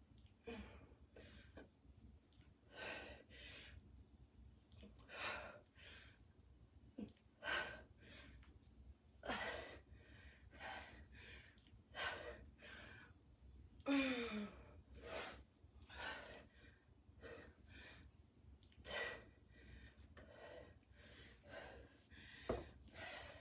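Heavy breathing of a person doing kettlebell squats: a faint, sharp breath every second or so, in time with the reps, with a brief grunt falling in pitch about fourteen seconds in.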